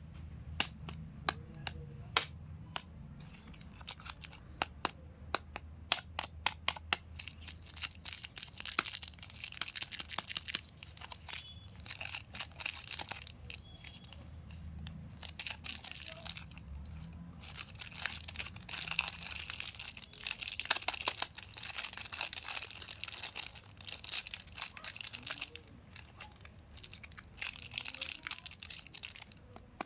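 Chocolate bar wrappers crinkled and torn open by hand: sharp crackling clicks for the first several seconds, then a longer stretch of dense crinkling and tearing.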